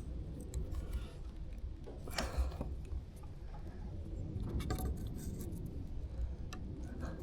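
Small clicks, taps and rattles of a part being worked into place by hand, with a brief rustle about two seconds in.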